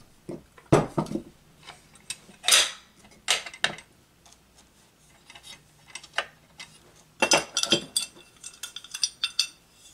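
Scattered metal clinks and knocks of electric motor parts and hand tools being handled on a wooden workbench, with one heavier knock about a second in and a quick run of clinks in the last few seconds.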